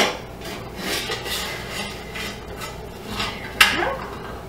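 Metal scraping and clinking from a granite-ware water-bath canner as its jar rack and hot jars are handled, with a sharp clink a little over three and a half seconds in.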